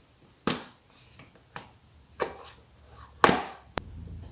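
Metal tool and part knocks while fitting a fastener on a motorcycle side cover: four sharp clacks about a second apart, the last the loudest, then a short click. A low steady hum starts just before the end.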